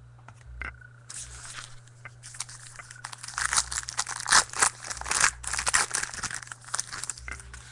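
Foil trading-card pack wrapper being torn open and crinkled by hand, an irregular run of crackling that grows busier about three seconds in.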